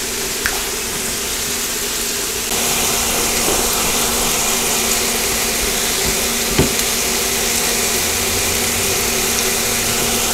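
Filet mignon steaks and mushrooms sizzling on a cast-iron grill plate over an induction cooktop: a steady frying hiss with a low steady hum beneath it, getting a little louder about two and a half seconds in.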